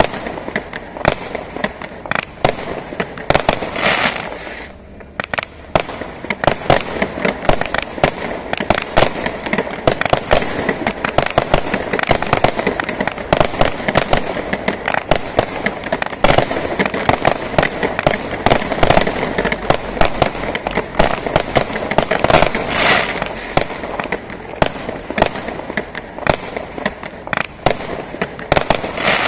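Three 20-shot consumer fireworks cakes firing together: a rapid, continuous run of launch thumps, loud aerial bangs and crackle, several a second, stopping right at the end.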